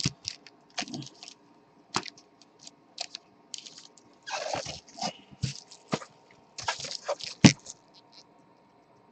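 Scattered crinkling rustles and clicks of gloved hands handling trading-card boxes and foil packs, with a sharp click about seven and a half seconds in.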